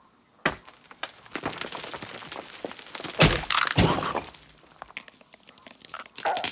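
Cartoon sound effects of cracking and knocking: a sharp crack about half a second in, then a run of rapid crackles with two heavy thuds a little past three seconds in, then quieter crackling.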